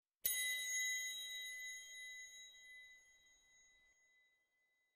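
A single bell-like chime struck once, a high ring that fades away over about four seconds.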